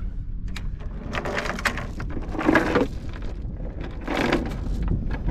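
An anchor and its chain being hauled aboard a small sailboat: irregular clunks and scraping, loudest about two and a half seconds in and again about four seconds in, over a low wind rumble on the microphone.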